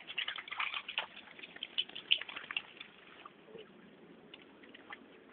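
Dog splashing through shallow creek water: a quick run of irregular splashes over the first three seconds that then thins out to a few faint ones.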